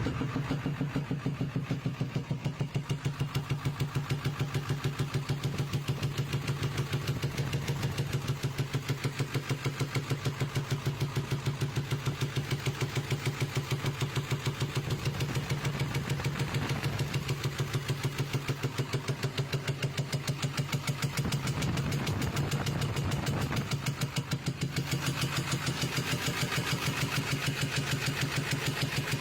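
2000 Ford F-350's 7.3 L Power Stroke turbo-diesel V8 running with a fast, regular popping, which the owner says sounds like it is backfiring out through the air intake.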